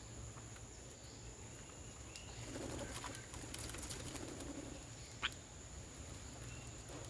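Birds feeding on rice on a wooden table: faint scattered pecking and rustling, with one sharp short chirp about five seconds in, over a steady high whine and a low hum.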